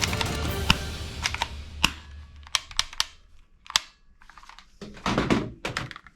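Background music fading out over the first two seconds, then a scattered series of sharp clicks and taps with a denser rattle of them about five seconds in, typical of plastic toy-gun parts being handled.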